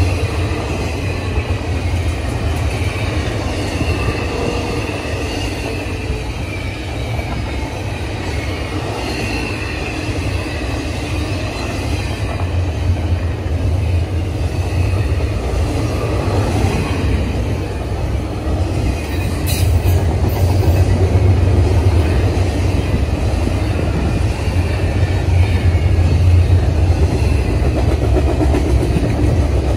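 Norfolk Southern double-stack container train rolling past: a steady heavy rumble of the well cars' wheels on the rails, with a faint, wavering high wheel squeal in the first half and a brief sharp click about twenty seconds in.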